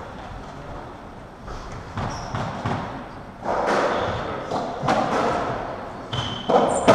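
Racketball rally: the ball knocking off rackets and thudding against the court walls, with short squeaks of shoes on the wooden floor, all echoing in the enclosed court. The knocks begin about a second and a half in and come at uneven intervals.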